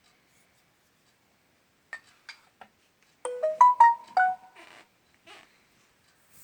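A short melodic jingle: about six quick, chime-like tuned notes stepping up and down in pitch, starting about three seconds in after a few faint clicks.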